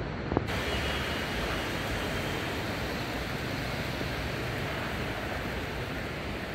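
Steady, even rushing outdoor background noise without any distinct events, with a sharp click about half a second in where the recording cuts to a new shot.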